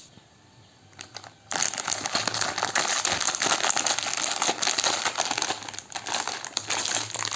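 Packaging crinkling and crackling in the hands as a part is unwrapped, starting about a second and a half in after a quiet pause.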